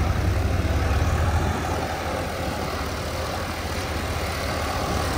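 Two diesel farm tractors, a New Holland 3630 TX and a Mahindra Arjun Novo 605 DI, running under load as they pull cultivators through dry soil side by side. The deep engine rumble is heaviest at first and eases about a second and a half in.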